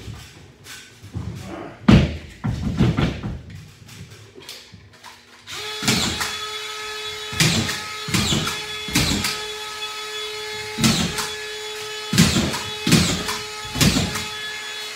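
Collated drywall screw gun fastening a ceiling sheet. At first there are a few knocks as the gun and board are handled. About five and a half seconds in the motor starts and runs with a steady whine, and screws are driven in one after another, roughly one a second, each with a sharp crack.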